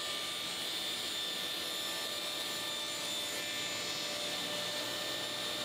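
Table saw running and cutting partway into the plywood base of a crosscut sled. It makes a steady, even noise with faint steady tones.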